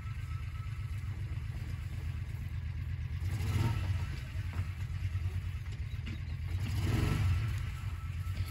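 Utility vehicle's engine running steadily at low speed as it creeps along towing a small trailer, with two louder rushes of noise about three and a half and seven seconds in.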